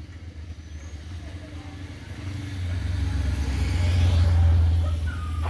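A motor vehicle's engine passing by, its rumble growing louder over the first few seconds, loudest a little past the middle, then fading.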